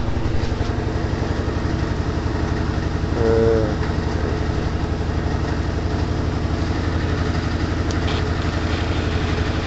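Steady low mechanical hum with a fast, even pulsing, like a motor running, and one brief wavering higher tone about three seconds in.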